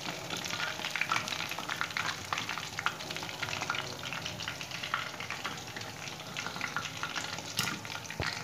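Masala-coated rohu fish pieces deep-frying in hot oil in a kadhai: a steady crackling sizzle, with a wire strainer moving through the oil as the fried pieces are lifted out. There are a couple of sharper clicks near the end.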